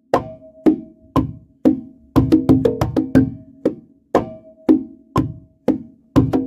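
Drum strokes played as a technique warm-up exercise: a steady beat of about two strokes a second with runs of quicker strokes, each note ringing briefly at one of two pitches, a low one and a higher one.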